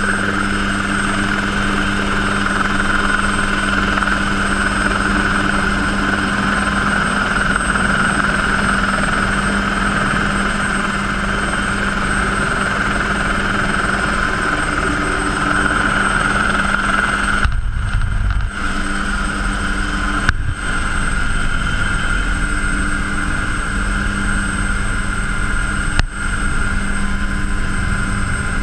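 Helicycle kit helicopter's Solar T62 turbine and rotor running steadily, heard from the open cockpit: a constant high whine over a low drone. The craft lifts off and hovers low. The sound briefly drops out a few times in the second half.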